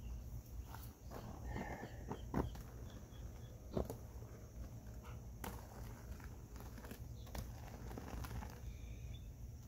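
Wet foamed concrete (aircrete) being poured from a bucket into block molds: soft plops and a few sharp knocks of the bucket, over a steady low rumble.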